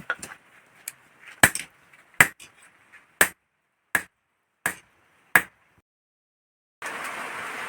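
Hammer striking hot iron on an anvil while a dao blade is forged: about eight sharp, ringing blows at a steady pace, roughly one every 0.7 seconds, stopping a little past halfway. About a second later a steady hiss begins.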